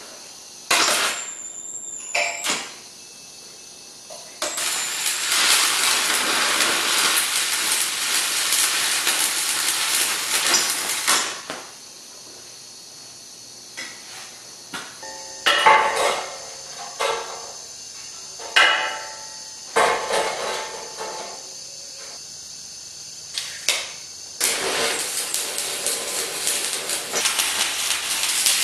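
Arc welding on heavy scrap steel. A short burst comes near the start, then a steady frying crackle of a weld bead runs for about seven seconds. In the middle come several sharp knocks on the steel with a ringing after them, and a second weld bead starts near the end.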